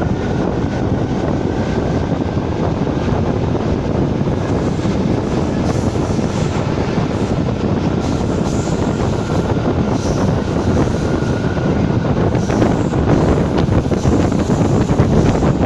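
ČD class 460 electric multiple unit running along the line: a steady rumble of wheels and rail noise with wind buffeting the microphone, growing a little louder near the end.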